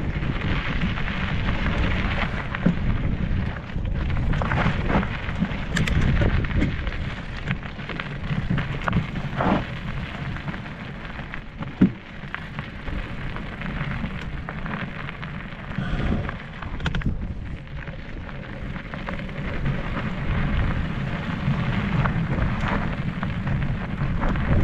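Mountain bike ridden along a dry dirt and gravel trail, heard at the on-bike camera: a steady rumble of wind buffeting the microphone and tyres rolling over dirt, with scattered clicks and rattles from the bike and one sharp knock about twelve seconds in.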